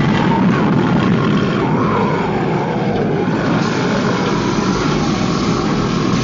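Cartoon sound effect of a magical energy blast: a loud, steady roaring rumble with faint wavering tones on top.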